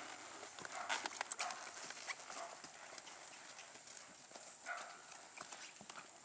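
Hoofbeats of a ridden horse moving around a sand-footed round pen: an uneven run of soft knocks.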